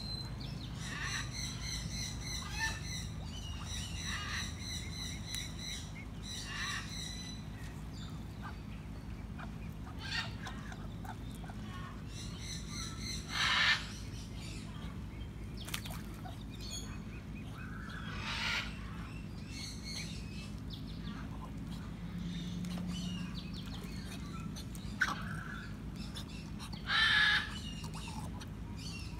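Birds calling: runs of quick, high repeated notes in the first several seconds, then three louder, harsher calls several seconds apart, over a steady low background noise.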